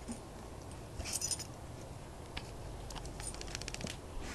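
Dogs' paws scratching and digging in dirt and dry leaf litter: a scratchy burst about a second in, scattered scrapes, and a quick run of scratches a little past three seconds.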